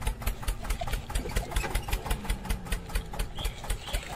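Small electric motor and plastic gearbox of a toy tractor running under load, with a fast, regular clicking.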